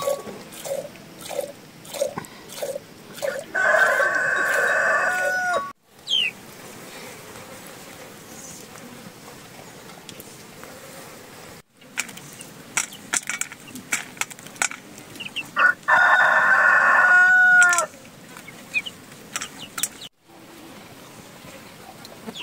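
A rooster crowing twice, each crow held about two seconds and ending in a falling note, with scattered short clicks and calls in between.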